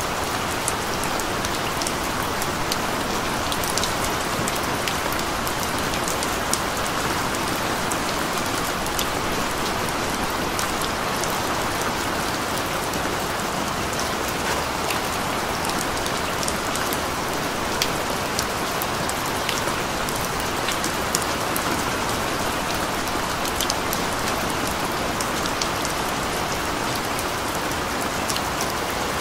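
Steady rain falling: an even hiss with many small, sharp drop ticks.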